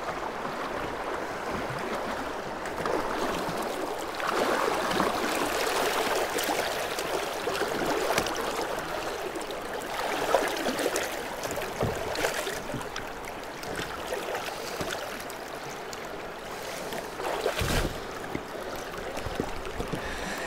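Stream water splashing and gurgling around a bass held by the lip in the current at a kayak's side, swelling and easing as it moves, with a few sharp knocks and a dull thump near the end.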